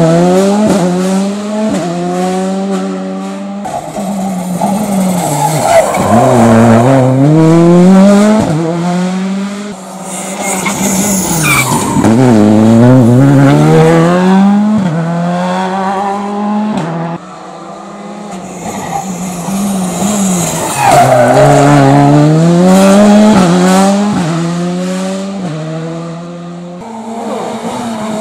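Rally cars, Skoda Fabias and then a Renault Clio, driven hard through tight bends one after another. Each engine's revs climb in rising sweeps, fall sharply at every gear change and climb again.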